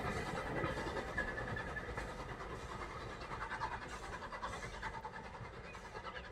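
Two Terrier 0-6-0 tank engines double-heading, their rapid exhaust beats chuffing as the train pulls away and fading steadily into the distance.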